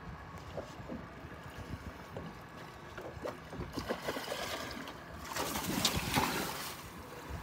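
Tarpon thrashing at the surface right beside the boat, a burst of splashing that builds about four seconds in and is loudest around six seconds, after light knocks of water against the hull.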